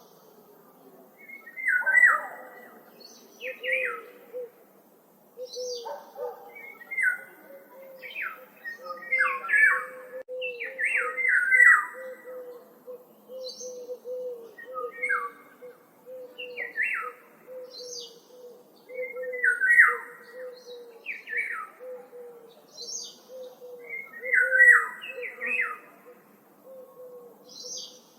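Woodland birds calling: short harsh calls repeat every second or two, some loud. Thin high notes come in between, and a quieter low, steady string of notes runs underneath.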